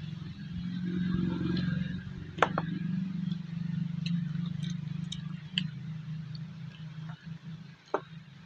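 A man eating rice with his fingers from a steel plate: chewing, and a few sharp clicks of hand and food against the steel, over a low steady drone that fades slowly.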